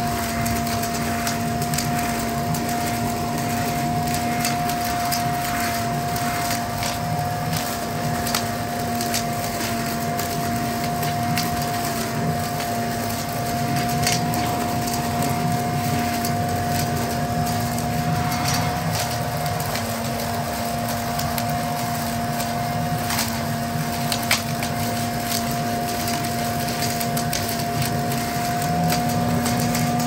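Corded electric Toro Ultra blower vac running in vacuum mode with a steady whine, sucking up dry leaves and sticks, which crackle through it with frequent sharp clicks.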